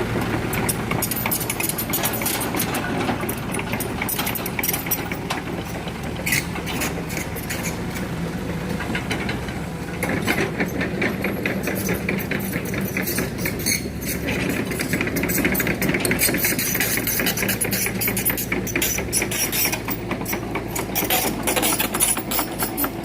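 Heavy machinery's diesel engine running steadily, with many short clicks and knocks over it that grow denser and louder from about ten seconds in.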